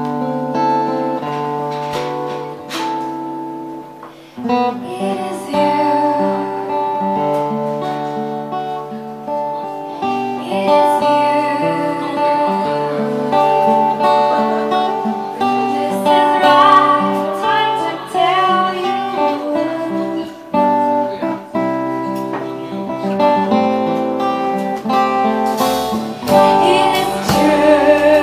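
Live band music: an acoustic guitar playing a slow song, joined by a singing voice.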